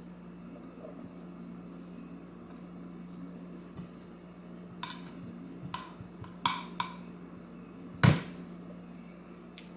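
Stainless steel skillet clinking and knocking as raw sausage is pressed into it by hand: a few sharp clinks from about five seconds in, then one louder knock about eight seconds in. A steady low hum runs underneath.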